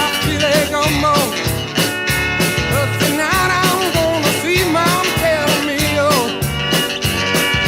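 Rock music with a steady drum beat and a wavering lead melody.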